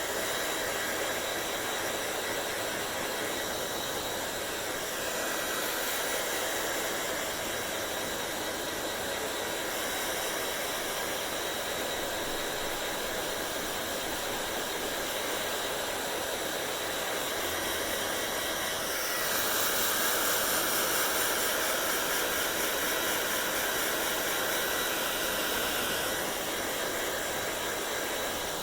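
Hair dryer blowing, a steady rushing noise whose tone shifts a little now and then; it grows louder about two-thirds of the way in, then eases back a few seconds later.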